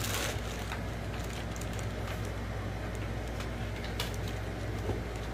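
Steady low hum under faint rustling and a few soft clicks as a small plush toy is squeezed and handled.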